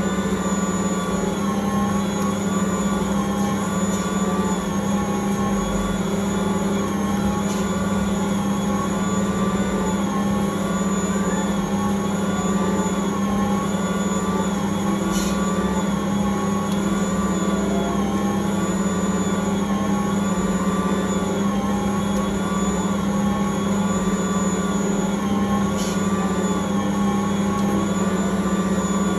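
Ankarsrum Original Assistant stand mixer running steadily, its motor turning the steel bowl while the roller kneads pizza dough: a constant hum whose higher tones waver in a slow, regular cycle, with a few faint ticks.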